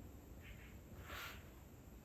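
Near quiet with one soft paper rustle about a second in: a hand brushing over the page of an open picture book.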